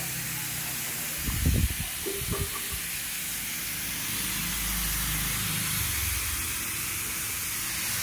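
Compressed air hissing steadily out of leaks in a pressurised steel vacuum chamber during a 2–6 bar leak test, with a low hum beneath. Two dull knocks sound about one and a half and two and a half seconds in.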